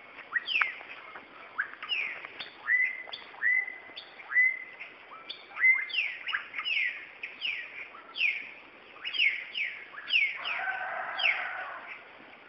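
Birds chirping in a dawn chorus: a steady run of short, downward-sweeping chirps, a couple a second, mixed with notes that rise and hold briefly. About ten seconds in, a lower, rougher call lasts for a second or so.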